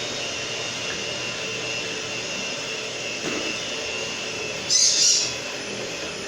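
Electric mixer beating thick cake batter, running steadily with a high whine and labouring as the batter gets heavy. About five seconds in there is a brief, louder burst of hissing noise.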